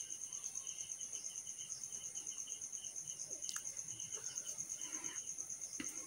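Faint, steady high-pitched insect trilling, with a lower chirp repeating about three to four times a second and a couple of light clicks.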